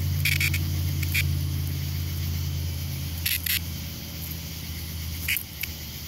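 A cicada giving several short buzzing squawks as it is poked by a finger, over a faint background cicada chorus. A low steady hum runs underneath and drops off about three seconds in.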